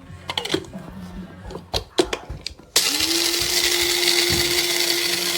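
Several clicks and knocks of handling, then about two-thirds of the way in the Amazon Basics electric blade coffee grinder switches on: its motor spins up quickly and runs with a steady whirring hum.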